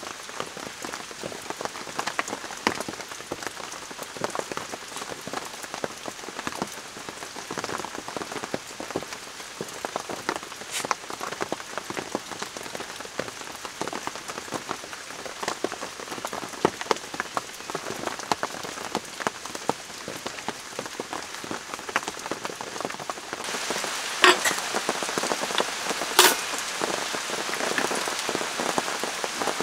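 Heavy rain falling on a tent, with many separate drops striking close by. Late on, the rain turns brighter and more open, and a few sharp clicks of small hard objects being set down stand out.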